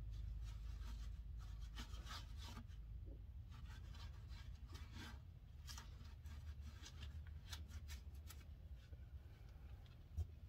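Cloth rag wiping old gear oil from the inside of an open truck rear differential housing: soft, irregular rubbing strokes over a low steady hum, with one short low thump near the end.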